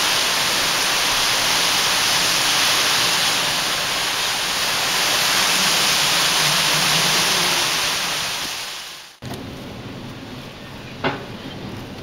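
Strong gusting wind rushing through palm trees, a loud steady rush of noise. About nine seconds in it cuts off sharply to a much quieter steady hiss of wind and rain heard from inside a car, with a single tap near the end.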